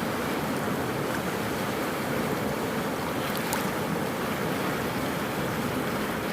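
Flooded river rushing in a steady, unbroken roar of turbulent water.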